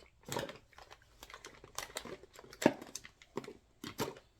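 Hair-product bottles and jars knocking and clattering against each other as they are rummaged through in a basket: a run of irregular clicks and knocks, the loudest a little past the middle.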